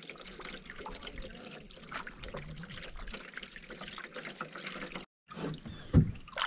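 Canoe paddling on calm water: water trickling and dripping off the paddle blade between strokes, with a single low thump about six seconds in.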